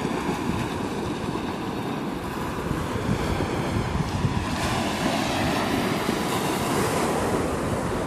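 Small sea waves breaking and washing up a pebble beach, the hiss of water over the stones swelling from about halfway through and easing near the end, with wind rumbling on the microphone underneath.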